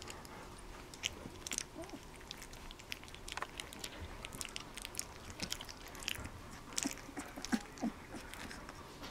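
Two-week-old Bernese mountain dog puppies mouthing and chewing on each other, making soft scattered clicking and smacking sounds with a few short squeaks.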